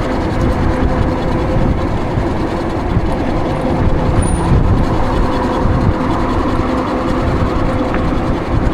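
Riding an e-bike in traffic: wind rumbling on the microphone, with a steady whine running under it.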